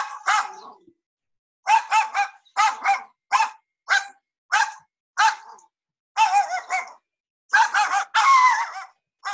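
Recorded dog barks from a dog-breed barking sound-effects video, played back over a computer. There are about fifteen sharp barks, mostly in quick twos and threes with single barks in between, and a longer drawn-out bark near the end.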